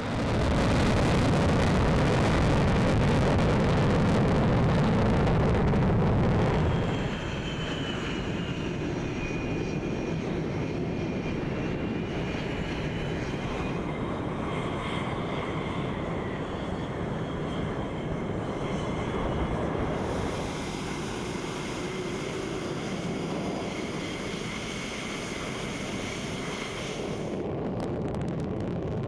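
Jet engines of F/A-18 Hornet-family fighters running: a loud rushing noise for the first seven seconds or so, then a steadier jet noise with a high whine. The sound changes abruptly several times between edited shots.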